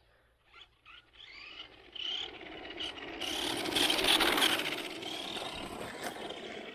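Electric motor of a Redcat Blackout XTE 1/10 R/C monster truck whining up and down in pitch with the throttle, together with its tyres scrabbling on gravel, loudest about four seconds in as it passes close.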